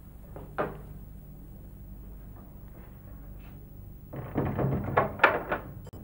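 Old wooden double door being pushed shut and fastened: a clatter of several knocks and rattles lasting about a second and a half, near the end. A single sharp click about half a second in.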